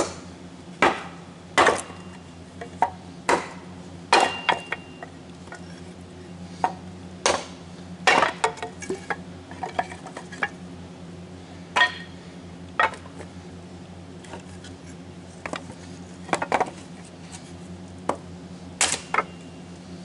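Kindling being split: about twenty sharp chopping strikes into wood at an uneven pace, some in quick pairs, with a short pause past the middle, over a steady low hum.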